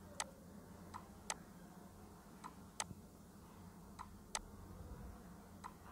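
Computer mouse button clicking in pairs about every second and a half, each pair a fainter click then a louder one, over a low steady hum.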